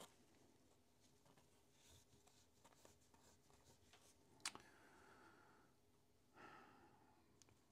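Near silence: faint rubbing of a microfiber cloth being wiped over a rifle bolt, with one sharp click about four and a half seconds in.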